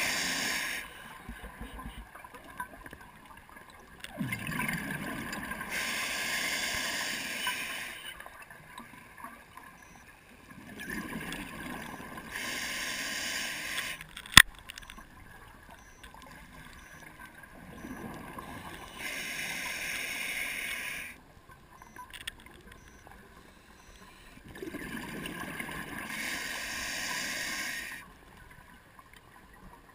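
Scuba diver's regulator venting exhaled breath as bubbles underwater: a gurgling rush about every six to seven seconds, each lasting three to four seconds, with quieter breathing in between. A single sharp click sounds about halfway through.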